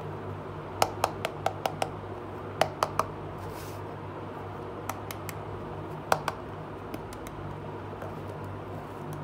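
Sharp clicks and taps of a small hard plastic toy case being handled and set down: a quick run of about six clicks about a second in, then a few short groups of two or three, over a steady low hum.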